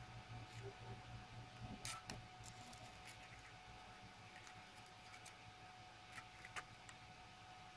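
Near silence: a few faint light clicks and scrapes as a dry cellulose tip-cleaning sponge is set into a soldering stand's tray with metal tweezers, about two seconds in and again about six seconds in, over a faint steady hum.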